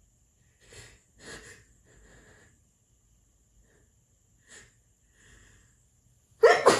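A person's short, quiet breaths building up, then a loud, sudden sneeze near the end.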